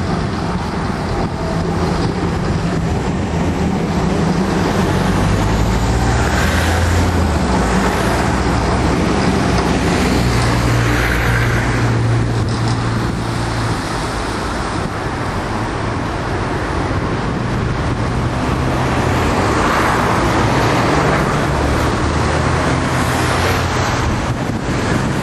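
Tram running: a steady rumble with a low hum that rises and falls in pitch as it goes.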